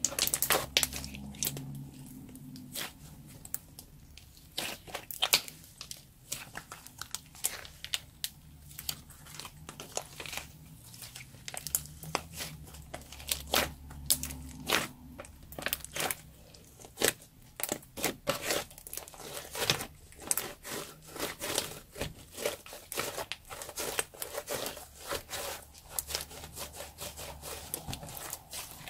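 Sticky black slime being kneaded, squeezed and stretched by hand, with clear slime being worked into it, giving a run of irregular wet clicks and crackles as it folds and pulls apart.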